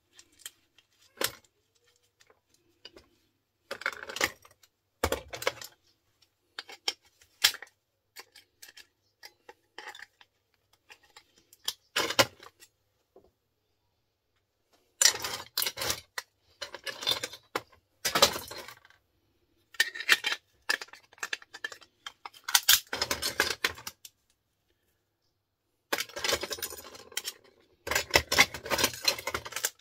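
Clicking and clattering of small plastic and metal parts as electrical sockets and plug fittings are pried and snipped apart with a screwdriver and pliers on a metal-topped workbench. Loose brass pieces are dropped and jingle against the bench. The clatter comes in irregular bursts, busiest and loudest in the second half.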